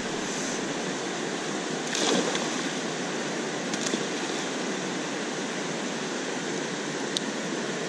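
Steady rush of a river flowing over rocks, with a brief splash in the water partway through.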